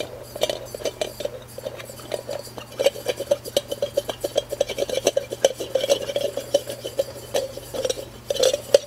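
Threaded steel knockout punch die spun by hand down the threaded stud of a hydraulic knockout cylinder: a fast, irregular run of small metallic clicks and rattles from the threads.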